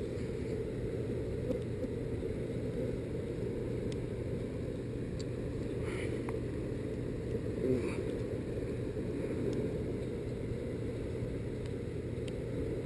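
Steady low rumble of fast river water flowing out below a hydroelectric dam, with a few faint ticks.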